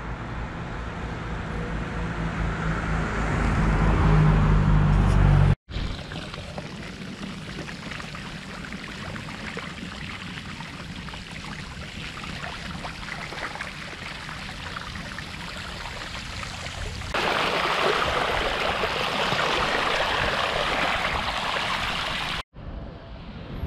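A low rumble that grows louder over the first five seconds and stops abruptly, then a bicycle's tyres rolling and splashing through floodwater on a forest path, a steady wash of water noise that becomes louder for the last several seconds.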